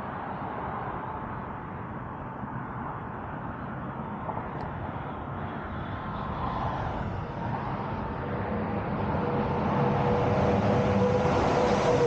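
Highway traffic passing on the bridge roadway. It grows louder over the second half as semi-trucks approach, and a steady whine joins in over the last few seconds.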